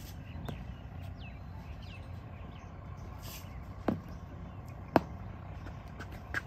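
Outdoor ambience at cricket practice nets with a steady low rumble and a few faint bird chirps, then two sharp knocks about a second apart in the second half.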